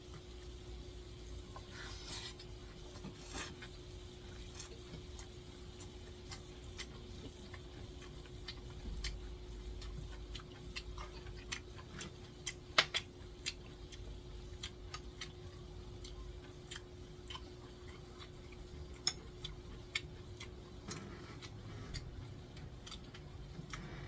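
Scattered sharp clicks and taps of eating utensils against dishes, the loudest a little past halfway, over a faint steady hum.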